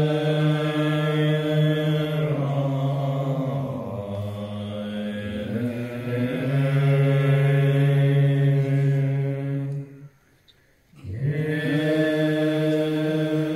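Tibetan Buddhist monks chanting a liturgy together in long, low held notes that slide from one pitch to the next, with a brief break about ten seconds in.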